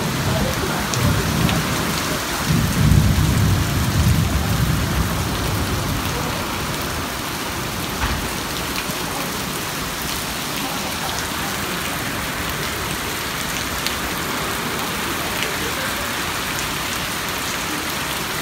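Heavy downpour in a thunderstorm: a steady, dense hiss of rain, with deep rumbling through the first few seconds, loudest about three seconds in.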